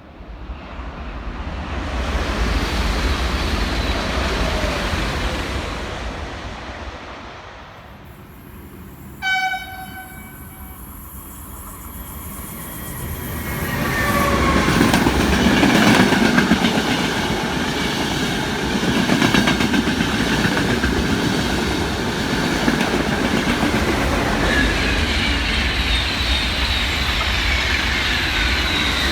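A train passing, rising and fading away, then a short single horn blast, then another train passing close and loud with a rushing noise and some whining tones.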